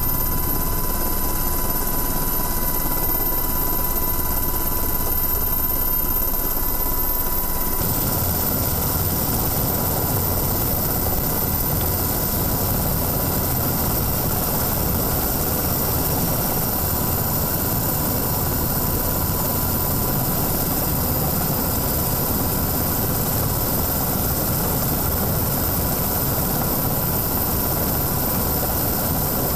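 Steady aircraft engine and airflow noise heard from on board, with a thin constant tone running through it. The noise gets brighter about eight seconds in.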